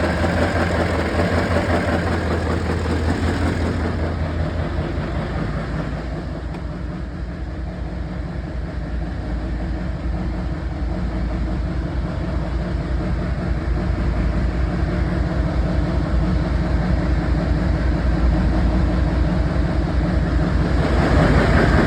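6.6L Duramax V8 turbodiesel engine running steadily, which the owner suspects has a knock and a misfire on one cylinder. The engine sound dips slightly a few seconds in and grows louder near the end.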